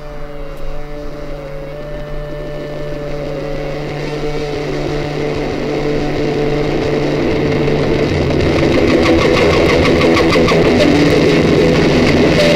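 Instrumental opening of a song building up: sustained droning chords that grow steadily louder, with a fast rhythmic beat coming in about eight seconds in.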